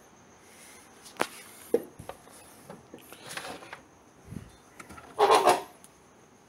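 Wooden knocks and clicks with two short scraping rubs, the loudest a little after five seconds in: wooden workbench parts being handled and shifted as the table saw stored beneath is lifted up.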